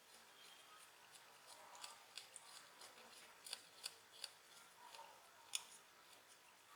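Faint, irregular small clicks and scrapes of a hand tool picking and peeling old adhesive off a smartphone's back cover, busiest in the middle with one sharper click about two thirds of the way through.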